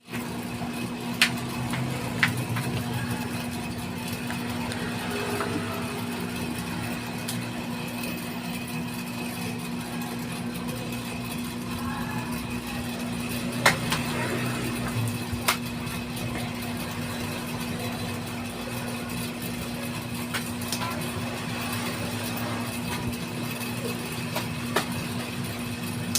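A small machine running with a steady hum, with a few sharp clicks or knocks now and then.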